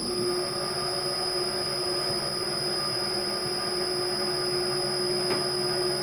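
Cold-forging machine's electric gear motor running steadily, driving its patterned rollers as they press a garland pattern into a 15 mm square steel tube. It comes on suddenly, a continuous hum with a steady whine, and there is a faint click about five seconds in.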